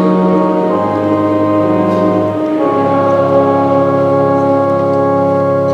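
Church organ holding sustained chords at the end of a hymn, moving to a new chord about a second in and again near the middle.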